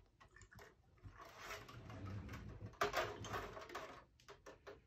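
Acetone solvent poured from a bottle into a metal spray-gun paint cup, an uneven splashing trickle lasting about three seconds, followed by a few light clicks.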